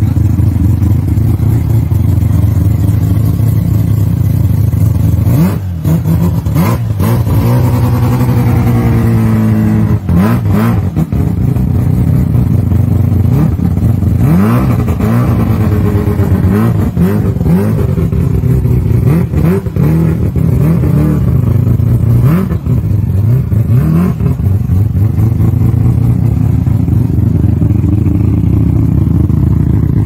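Rotary engine swapped into a Toyota Corolla, heard from the exhaust, idling steadily and revved up and back down several times through the middle stretch.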